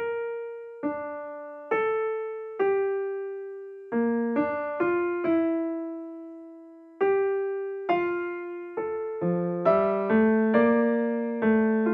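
Background music: a slow solo piano melody of single struck notes, each ringing out and fading, with lower accompanying notes joining about nine seconds in.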